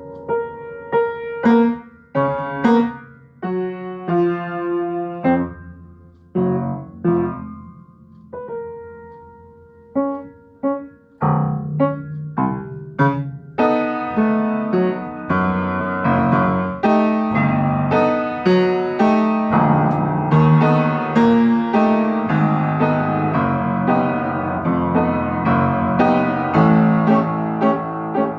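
Solo piano improvisation. For about the first ten seconds it is sparse, with separate chords and notes struck and left to ring and die away. Then the playing turns dense and continuous, with chords struck in quick succession.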